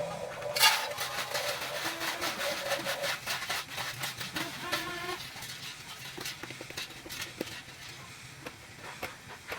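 Small electric motors of a Huina 1550 RC toy excavator whirring in short spells over a low steady hum, with many quick plastic clicks and rattles, busiest in the first half.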